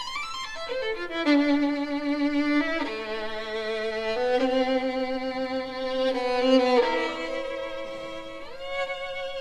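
Violin playing slow held notes, often two strings at once, each changing after a second or so, with a short upward slide near the end.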